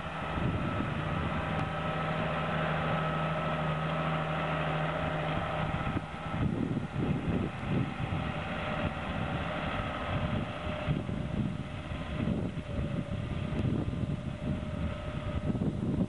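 New Holland tractor engine running steadily under the load of an eight-row maize planter. About six seconds in, the steady engine hum gives way to an uneven, gusty rumble.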